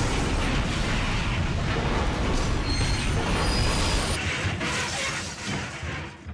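Steam train wreck: a loud crash and explosion with shattering debris, dying away over the last two seconds.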